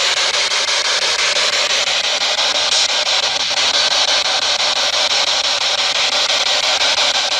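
Steady, loud radio static hissing from a handheld radio-sweep ghost box (spirit box), with a fast, even ticking as it scans through stations, while it is listened to for replies.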